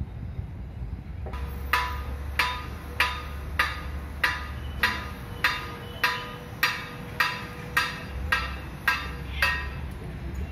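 A hammer striking metal in an automobile workshop, about fourteen ringing blows at a steady pace of a little under two a second, starting about a second in and stopping near the end, over a low steady rumble.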